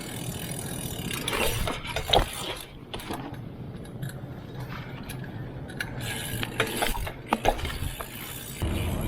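Irregular mechanical clicking and clinking, with scattered sharp knocks over a steady low background.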